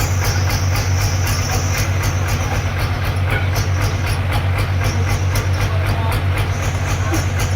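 Band sawmill machinery running steadily: a loud, even low hum with a fast, regular clatter of about five beats a second.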